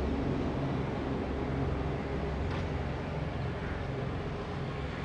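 Steady low hum and rumble of a running motor; its deepest tones fade somewhat about halfway through.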